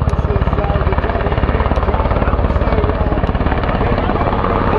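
HH-60 Pave Hawk helicopter flying low past, its main rotor beating in a loud, fast, even pulse.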